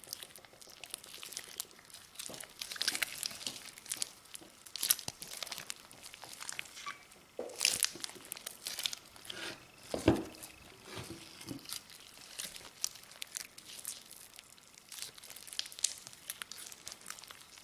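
Clear slime being squished, folded and stretched by hand, giving a continuous irregular crackle of small clicks and pops from trapped air. A louder squelch comes about ten seconds in.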